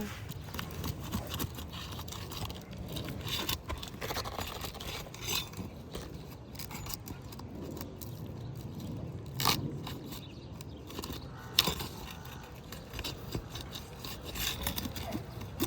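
Scraping and crackling of asphalt roof shingles being pried apart and lifted to break their seal, with a sharp click past the middle and another about two seconds later.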